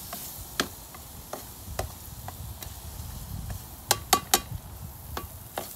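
Metal spatula stirring and scraping fried onion paste and whole spices in a large metal pot, with sharp clinks where it strikes the pot, three in quick succession about four seconds in, over the sizzle of frying.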